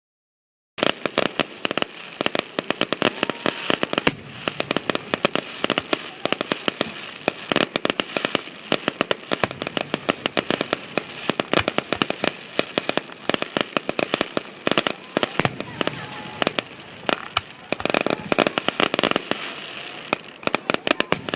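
Fireworks finale: a dense, continuous barrage of sharp crackling pops and bangs, many per second, starting just under a second in.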